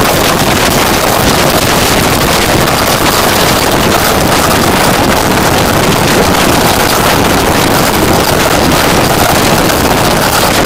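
Loud, steady wind rushing over the microphone at the open door of a moving train coach, blended with the train's running noise on the rails.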